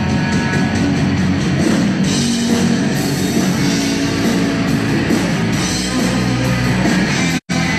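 Live heavy rock band playing loud: distorted electric guitars, bass and drum kit. The sound cuts out completely for a split second near the end.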